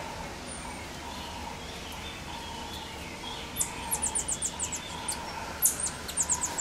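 Common marmosets giving runs of short, very high-pitched chirping calls, several a second, starting about halfway through and again near the end.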